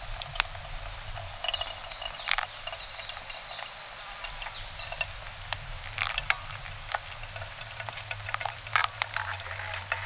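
Hot water poured in a thin stream from a gooseneck kettle onto coffee grounds in a paper pour-over filter, with the wet grounds crackling and popping with many small clicks and ticks as they bubble.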